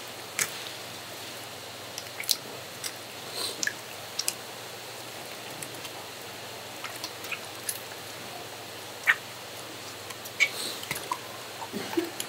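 Irregular wet squelches, drips and light clicks from raw seafood being handled, scattered over a steady background.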